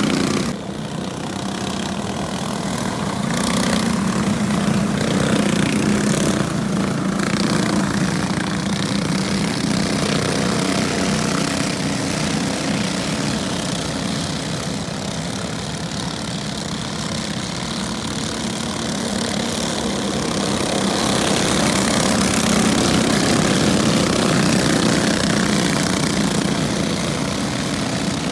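Several junior sprint cars' small engines buzzing together as they lap a dirt oval. The sound swells twice as the pack comes past and eases as it moves away.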